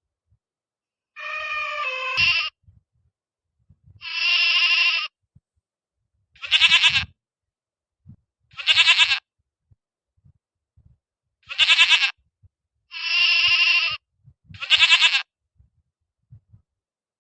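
An animal bleating: seven short, pitched bleats with brief pauses between them.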